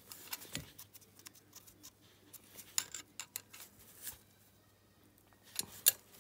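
Wrench on the rocker-arm adjuster lock nut of an air-cooled 250 cc ATV engine, tightened while a feeler gauge holds the valve clearance: a few scattered sharp metal clicks and ticks of tool on nut and rocker, the loudest pair near the end.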